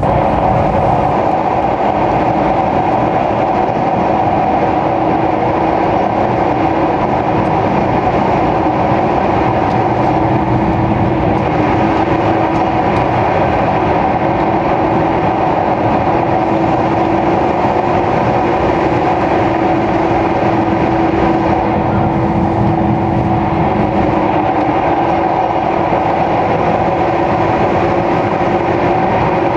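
485-series electric express train running at speed, heard inside the passenger car: a steady, loud running noise with a constant hum.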